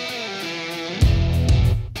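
Background rock music led by guitar; a heavier low end comes in about a second in, and it drops out briefly near the end.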